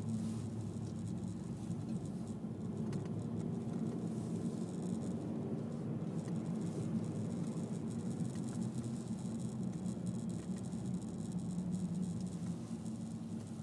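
Steady cabin noise inside a Honda Civic 1.8 i-VTEC on the move: a low, even hum from the four-cylinder engine and tyres on the road, with faint light ticks and rattles over it.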